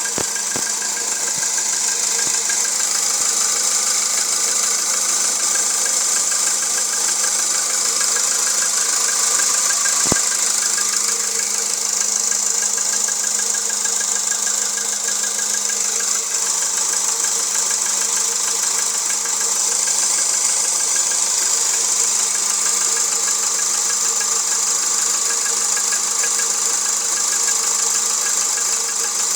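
Volkswagen Jetta 1.6-litre engine running steadily with a knock in the engine.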